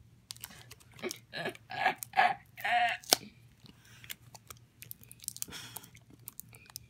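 Small cardboard blind box being pried and torn open by hand: irregular crackling, crinkling and sharp clicks of the cardboard.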